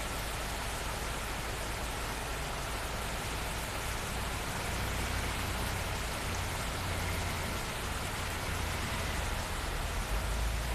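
Steady rain falling, with a low rumble underneath that swells near the end.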